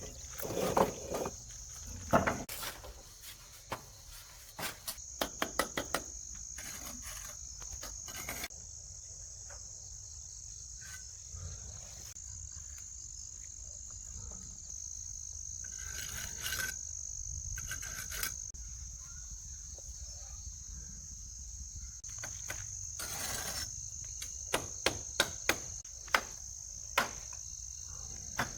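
Insects chirring in one steady high-pitched drone, with sharp knocks at intervals: a handful about five seconds in and a quicker run of them near the end.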